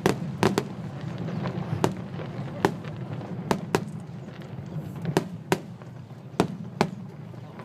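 Fireworks going off: sharp bangs at uneven intervals, about one or two a second, over a steady background din.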